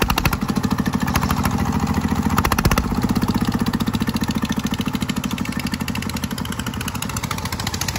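Single-cylinder diesel engine of a công nông two-axle farm truck running under way with an even, rapid chugging beat, puffing black smoke as it pulls; a single loud knock comes near the middle, after which the beat eases and gets a little quieter.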